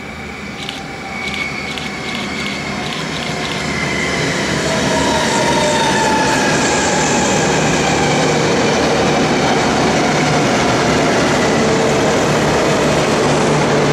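V/Line VLocity diesel multiple unit approaching and passing close by. It grows louder over the first five seconds, then holds steady as the carriages go past. Tones slide down in pitch through the pass, with a run of light clicks in the first few seconds.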